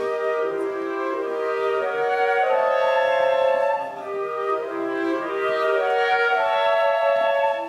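Orchestral music: held notes from wind instruments, moving from one chord to the next every second or so.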